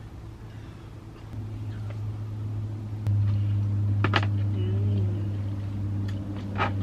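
A steady low hum that steps up in loudness about three seconds in, with two sharp clicks, one a little after four seconds and one near the end.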